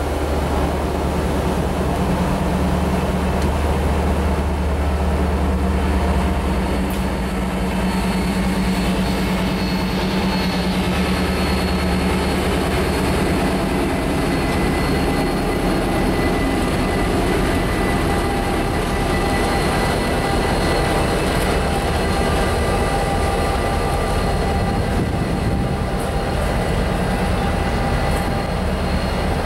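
Pair of CSX diesel-electric freight locomotives, including SD50-2 8542, passing slowly. Their engines make a steady low drone, strongest for the first half, and then give way to a broader rumble, with thin high whines over the top.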